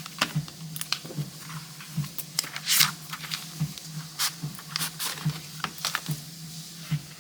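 Handling noise as an A6 Hobonichi planner is worked into a leather planner cover: irregular rustles of paper and leather with light taps and clicks, over a faint low steady hum.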